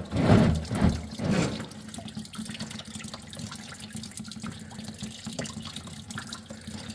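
Antifreeze gushing out of an opened radiator drain and splashing, loudest for the first second and a half, then pouring steadily.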